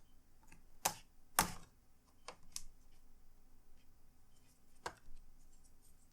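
Sharp plastic clicks and snaps as a laptop's replacement screen assembly is pried back out of its clips: two loud snaps about a second in, then a few lighter clicks.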